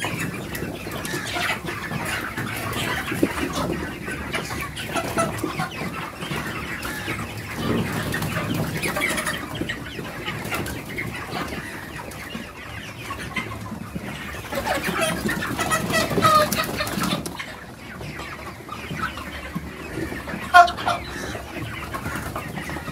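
A flock of young broiler chickens cheeping and clucking continuously at feeding time. There is a brief sharp knock near the end.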